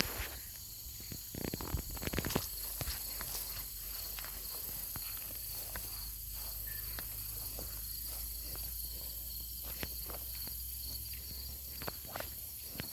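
Quiet outdoor ambience: a steady, high-pitched insect drone, likely crickets, with scattered soft clicks and a faint low rumble.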